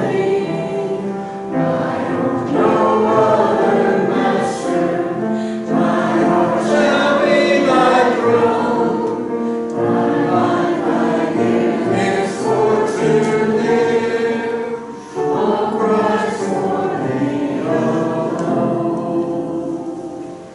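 Church congregation singing a hymn together, the singing fading away near the end.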